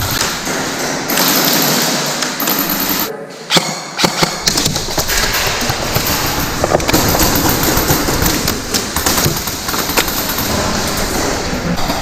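Airsoft guns firing: repeated sharp clicks and short bursts of shots over a loud, noisy background.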